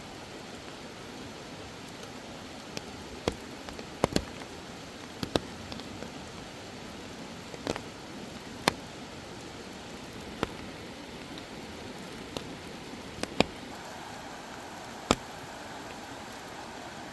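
Steady monsoon rain, an even hiss, with scattered sharp taps of larger drops landing close by, about a dozen at irregular times.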